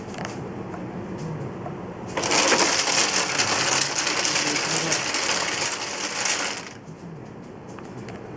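Automatic mahjong table running a cycle, its motor and mechanism whirring with light clicks. About two seconds in, a loud dense clatter of mahjong tiles churning inside the table starts and lasts about four and a half seconds, then drops back to the quieter mechanism sound. The table is running normally with a newly replaced pusher.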